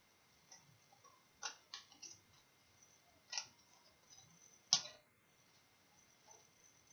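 Hand scissors snipping through paper in a few scattered, sharp cuts at an uneven pace, the loudest about five seconds in.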